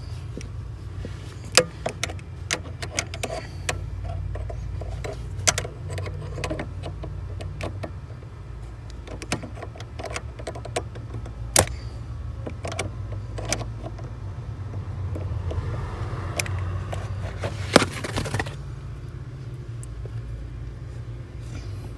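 Scattered sharp clicks and knocks of a steel screwdriver working against the metal clutch pedal spring assembly as its pin is pushed out, over a steady low hum.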